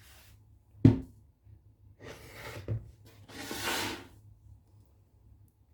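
Bread dough being handled out of its bowl: a dull thump about a second in, a softer knock near the three-second mark, and two spells of scraping and rustling.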